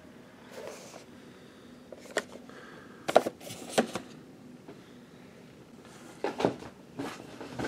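Cardboard action-figure window boxes being handled and set down on a stack: a series of short knocks and scrapes, two sharper ones about three seconds in and a few more near the end.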